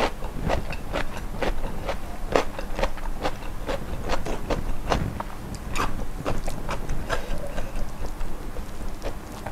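A person chewing crunchy food close to the microphone: crisp crunches a few times a second, thinning out near the end.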